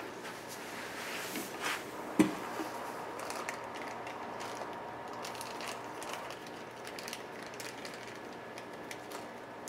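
Small parts and packaging being sorted through while searching spare rubber drive belts: scattered clicks and rustles, with one sharp knock about two seconds in.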